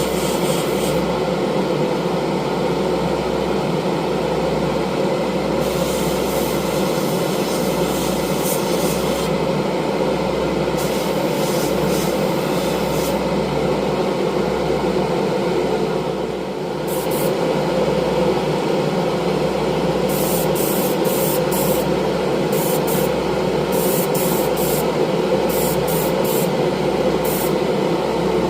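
Airbrush setup running steadily, with short bursts of high air hiss as the airbrush sprays on and off.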